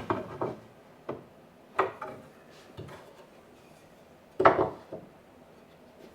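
Scattered wooden knocks and clatter of cedar boards and tools being handled on a workbench, about seven separate strikes, the loudest about four and a half seconds in.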